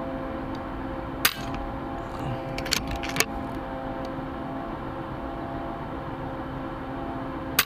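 Air rifle shooting: sharp cracks about a second in, a quick cluster around three seconds and one more near the end, over a steady machine hum.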